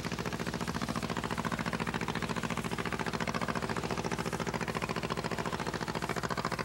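Trap skiff's inboard engine idling with a steady, rapid, even pulse.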